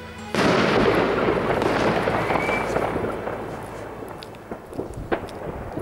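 A sudden loud firework bang sets off dense crackling that fades away over a few seconds, with a brief rising whistle partway through. A few separate pops and bangs follow near the end.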